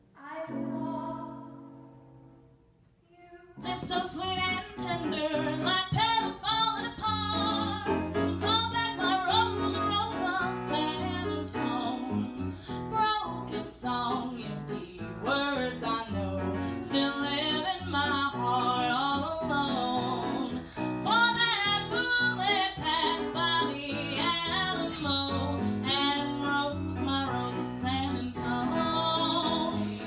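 Female vocalist singing with instrumental accompaniment. A held sung note fades away over the first couple of seconds. About three and a half seconds in, a new song starts abruptly and runs on.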